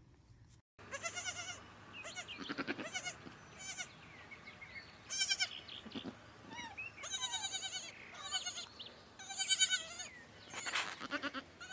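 Young goat kid bleating again and again, starting about a second in: about nine high, wavering bleats with short gaps between them.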